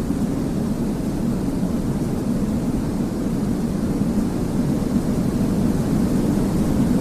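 Steady, deep white-noise track for baby sleep: an even hiss weighted toward the low end, with no changes.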